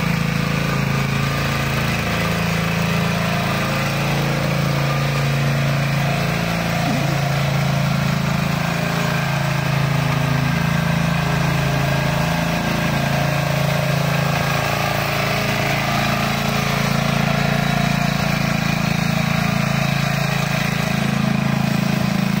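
Small engine of a walk-behind mini tiller running steadily under load as its tines churn through the soil.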